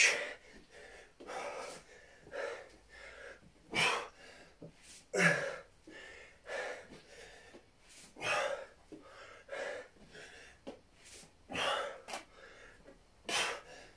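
A man breathing hard with effort during sit-ups, a forceful exhale about every second and a half, some with a slight grunt.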